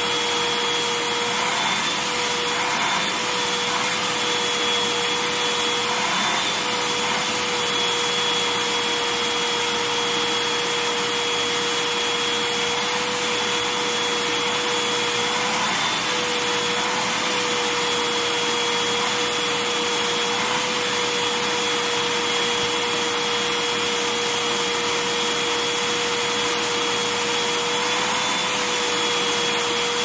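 Canister vacuum cleaner running steadily, its nozzle worked over sheepskin Ugg boots: an even rushing hiss with a steady whine that wavers briefly now and then.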